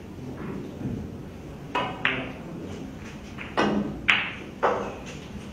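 About five sharp knocks or taps, each dying away with a short ringing tail, over a steady low background hum.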